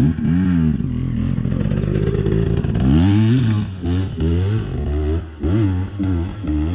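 Dirt bike engine revving hard up a steep hill climb, its pitch rising and falling several times as the throttle is opened and closed.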